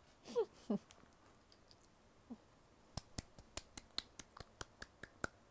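A woman's brief high vocal sound in the first second, then a quick, even run of about a dozen sharp clicks, about five a second, lasting a little over two seconds.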